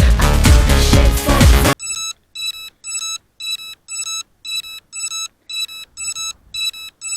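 Electronic dance music with a heavy beat that cuts off suddenly about two seconds in. A repeating high electronic beep follows, about two beeps a second in an even pattern, with silence between the beeps.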